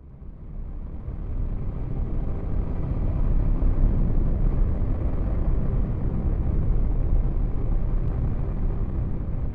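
A deep rumbling noise with no clear tone, heaviest in the bass. It swells up over the first few seconds and then holds steady and loud, like a dark outro sound effect.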